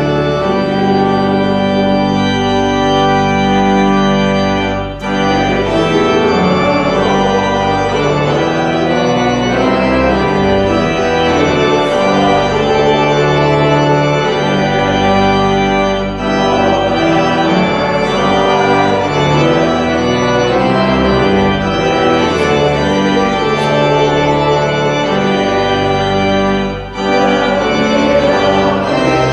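Church organ playing slow sustained chords, with short breaks between phrases about every eleven seconds.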